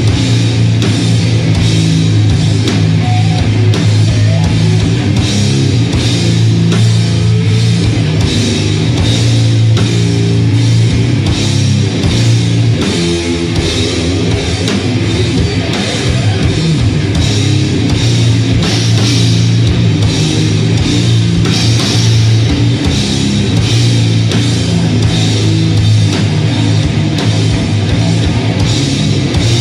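Doom metal band playing live, straight from the mixing desk: heavily distorted guitars and bass hold low, sustained chords over drums and cymbals, with a brief break in the riff about 13 seconds in.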